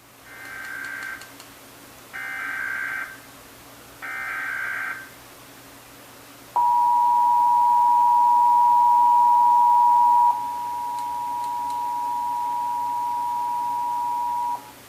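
Emergency Alert System test signalling: three bursts of about a second each of SAME digital header data tones, then the EAS two-tone attention signal (853 and 960 Hz together). The attention signal starts about six and a half seconds in as a loud, steady dual tone lasting about eight seconds, and drops slightly in level partway through.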